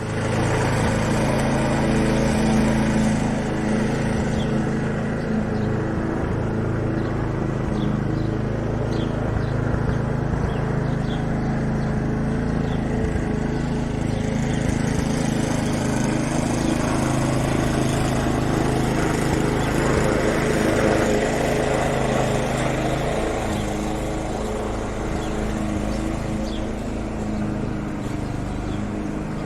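Petrol lawn mower engine running steadily at a constant speed, with a steady low hum and a broad whirring noise above it.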